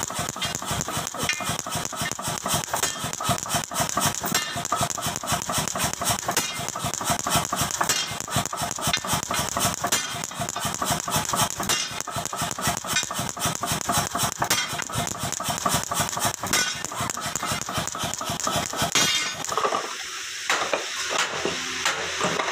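50 kg mechanical power hammer running with rapid, steady metallic blows, driving a chisel to score notches across a flat steel bar. The hammering stops near the end.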